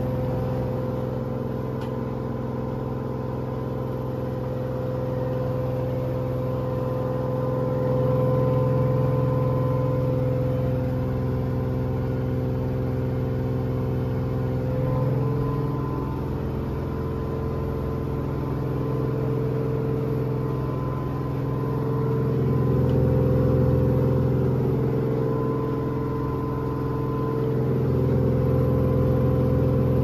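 Front-loading washing machine spinning at maximum speed: a steady motor hum and whine over the drum's rumble, its loudness swelling and easing slowly every several seconds.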